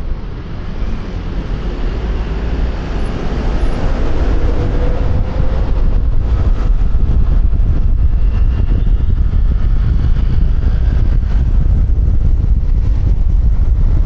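Wind rumbling over a helmet-mounted external microphone together with the engine of a QJMotor Fortress 160 scooter under way. It grows louder over the first few seconds as speed builds, then holds steady.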